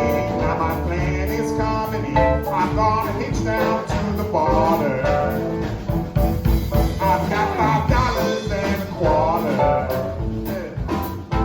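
Live blues band playing an instrumental stretch, with drums and bass under a bending melodic lead line.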